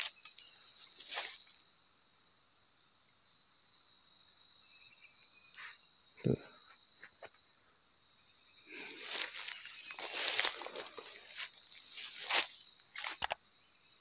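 Steady high-pitched insect chorus, with a few faint bird calls. Scattered bumps and rustles of handling come through, the loudest about six seconds in and again about twelve seconds in.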